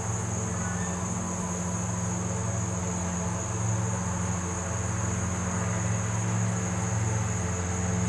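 Steady insect chorus, a constant high-pitched buzz that does not break, over a low steady hum.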